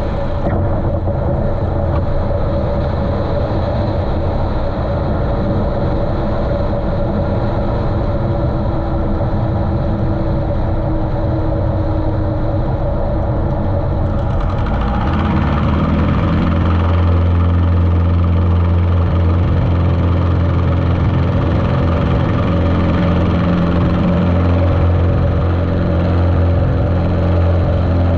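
Continental O-200 engine of a 1973 Cessna 150L running steadily, muffled by the GoPro's waterproof case. About halfway through it grows louder and fuller, with more low rumble and more top end, and holds there.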